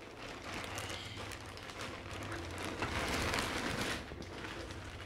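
Clear plastic wrapping crinkling and rustling as a folded ring light is pulled out of it, loudest about three seconds in.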